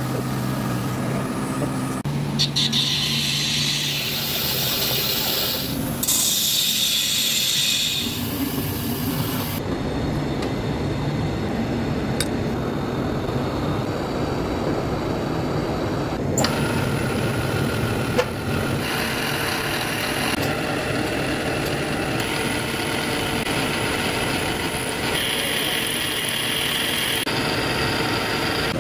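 Steady metalworking machine noise that changes abruptly several times from clip to clip: a wire EDM machine running with its water flush at the start, then milling machine sounds, ending with an end mill cutting a slot along a metal tube.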